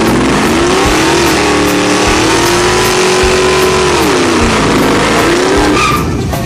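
Pickup truck engine held at high revs during a burnout, over the hiss of its spinning rear tyres. The engine dips briefly a little past halfway and climbs again before cutting off near the end.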